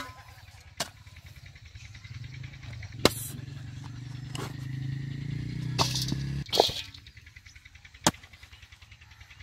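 A short-handled hand hoe chopping into hard, dry field soil: about seven sharp knocks at irregular intervals as the blade strikes and breaks up the ground. A low drone sits behind the strikes from about two seconds in and cuts off suddenly after six seconds.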